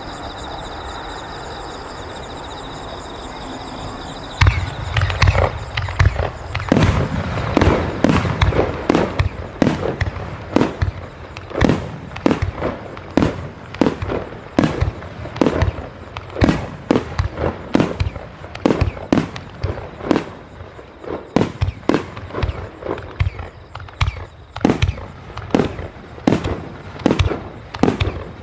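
Fireworks finale: aerial shells bursting in rapid succession, about two sharp bangs a second, each echoing. The barrage starts about four seconds in, after a stretch of steady background noise.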